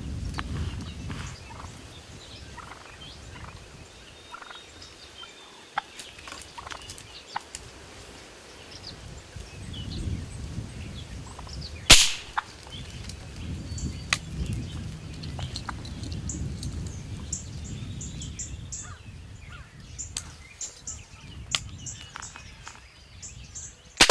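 Wild turkey gobbling, with the loudest, sharpest gobble about halfway through, among scattered short bird chirps.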